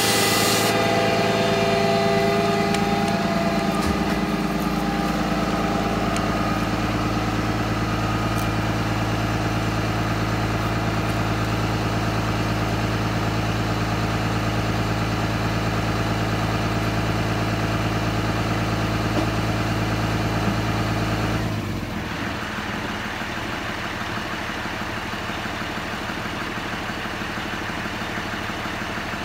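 Freightliner M2 106 porta-potty pump truck running steadily, its Cummins B6.7 diesel engine and vacuum pump making a steady hum; a high hiss of air stops less than a second in. About 21 seconds in the hum cuts off and a quieter, lower running sound goes on.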